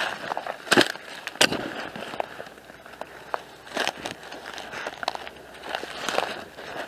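Footsteps through dry leaves, twigs and rough grass on a woodland floor: an irregular run of crunches and snapping twigs, loudest twice in the first second and a half.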